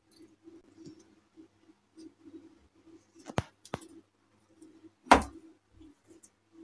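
Yellow plastic modak mould being handled and filled with dough: two sharp plastic clicks about three and a half seconds in, then a louder knock about five seconds in.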